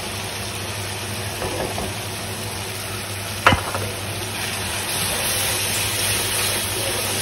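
Spiced onion masala sizzling in oil in a steel kadai as yogurt is poured in, with a single sharp metal knock about three and a half seconds in. From about five seconds the sizzle grows louder while a spoon stirs the yogurt into the masala.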